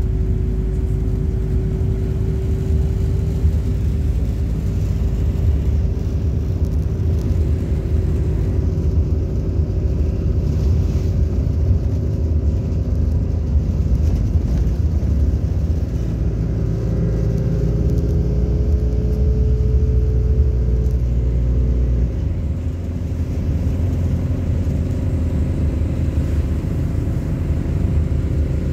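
MAZ-226 bus driving, heard from inside the passenger cabin: a steady engine drone over road rumble. A little past halfway the engine note climbs, then it eases off and the rumble drops.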